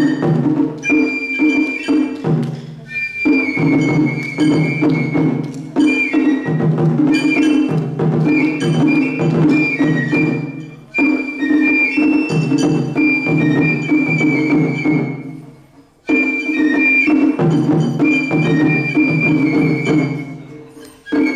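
Matsuri-bayashi festival music: a high bamboo flute (shinobue) holding and ornamenting a melody over steadily beaten taiko drums with sharp struck accents. The playing dips briefly between phrases a few times.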